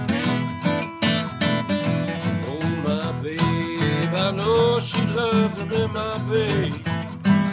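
Acoustic guitar strumming a blues shuffle rhythm in an instrumental break, with a lead melody line of bending notes played over it.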